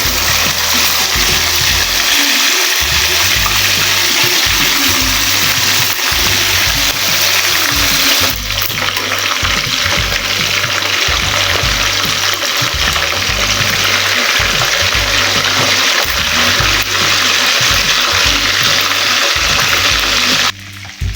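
Water running in a steady, loud rush that cuts off suddenly near the end, over background music with a bass line.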